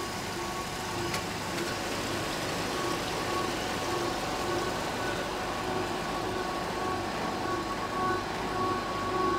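Steady running noise of a wood-plastic composite extrusion line: a dense, even mechanical hum with faint tones that repeat.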